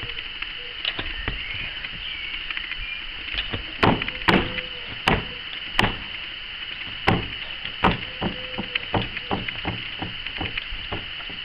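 Trials unicycle hopping on a stack of wooden pallets: a series of sharp, irregular knocks as the wheel lands. The loudest knocks fall between about four and eight seconds in, followed by a quicker run of lighter ones as the rider makes small hops on top of the pallets.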